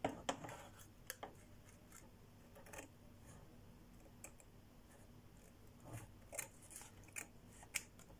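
Small scissors snipping a paper post-it note, trimming its edges. Faint, scattered snips: a few near the start and a cluster more near the end.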